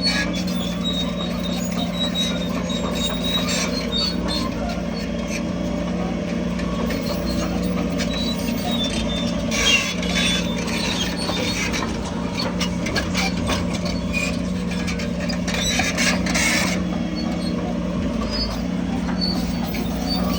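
Diesel engine of heavy earthmoving machinery running steadily at a constant pitch. Two short bursts of high-pitched squeaking noise come over it, about ten seconds in and again around sixteen seconds.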